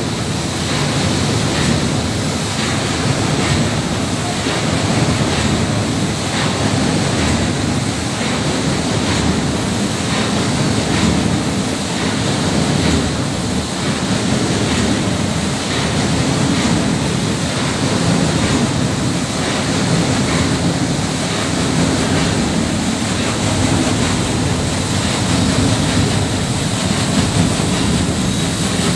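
A 1914 paddle steamer's paddle wheels churning and splashing through the water in a steady rush, with its steam engine running beneath and a faint regular beat.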